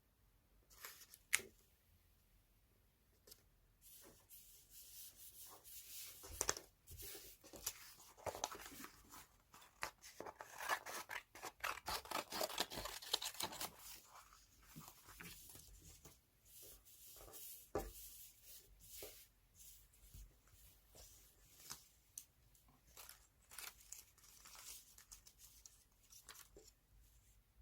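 Magazine paper being handled and cut up: a run of crisp paper rustles, tears and snips, busiest in the middle, with scattered sharp clicks.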